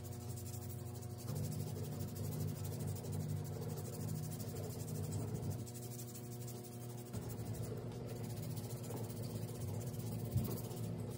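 A hand nail file (emery board) rubbed back and forth across toenails, a fine scratching. A steady low hum runs underneath.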